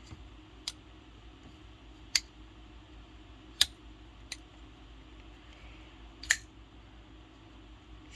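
Five sharp clicks and taps, spaced one to two seconds apart, from small objects being handled, over a faint steady room hum.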